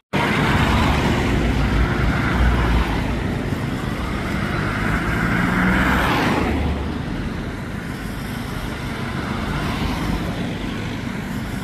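Street traffic driving past, with one vehicle passing close that swells and fades away about six seconds in.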